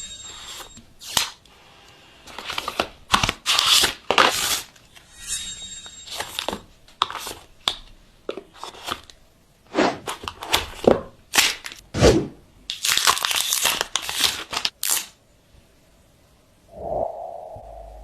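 Phone packaging being handled and opened: irregular bursts of plastic wrap tearing and crinkling, with sharp cracks and rustles from the box.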